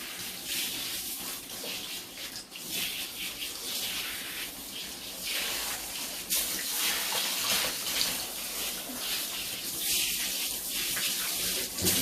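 Running water splashing unevenly, its hiss rising and falling, as shampoo is rinsed out of long hair.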